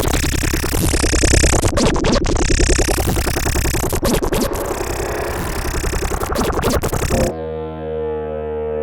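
Experimental electronic sound-design loops built from trumpet-controlled oscillations: a dense, gritty, rapidly pulsing noise texture that cuts off abruptly about seven seconds in, giving way to a sustained droning tone.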